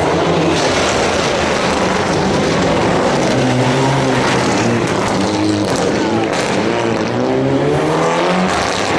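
Mitsubishi rally car at full effort on a stage, its engine revving up again and again and dropping back at each gear change as it drives past.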